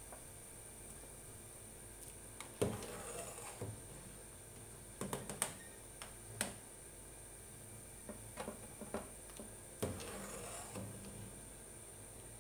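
A perforated steel skimmer clinking and knocking against a steel cooking pot as boiled chicken pieces are scooped out of the stock: a handful of light, scattered knocks over several seconds, the clearest a little past two seconds in and again near ten seconds.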